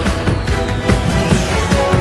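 Electronic theme music of a TV news intro, with held synth tones over a steady beat.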